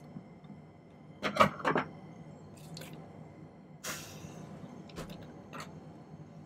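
Several sharp clicks and taps of small metal jewellery tools being handled on a soldering bench, loudest a little over a second in, with a short hiss about four seconds in.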